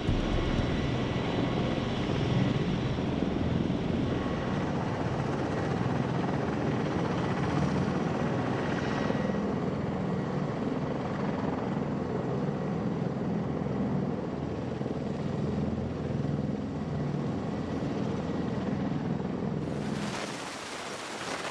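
CH-53E Super Stallion heavy-lift helicopter running, a steady drone of rotor and turboshaft engines with a faint high turbine whine. Near the end it cuts to a thinner, more distant hiss.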